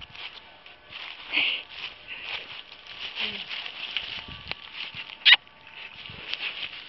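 Dry fallen leaves rustling and crackling under a dog moving through them close by. One short, sharp, high-pitched sound about five seconds in is the loudest moment.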